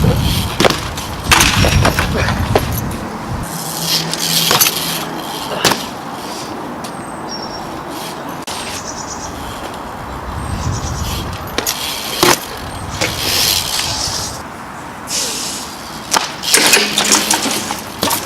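BMX bike being ridden on concrete: tyres rolling with a rushing noise, broken by sharp knocks and clanks of the bike hitting the ground, the loudest cluster near the end as a trick is landed.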